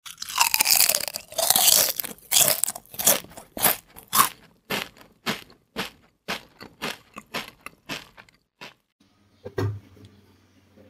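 Intro sound effects under an animated title card: a sweeping whoosh, then a string of sharp hits about two a second that fade away like an echo. Near the end comes a single low thump, then a faint low hum.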